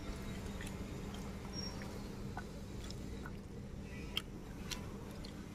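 Fingers mixing rice with curry on a steel plate: soft, wet squishing with a few small clicks, over a low steady hum.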